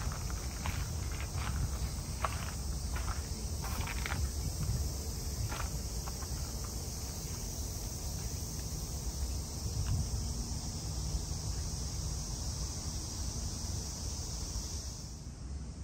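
Steady high-pitched chorus of summer cicadas, which cuts off near the end. Footsteps on a gravel path run through the first few seconds.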